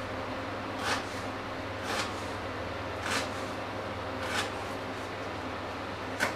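Kitchen knife chopping against a wooden cutting board, five short sharp knocks about a second apart, the last near the end the loudest, over a steady low hum.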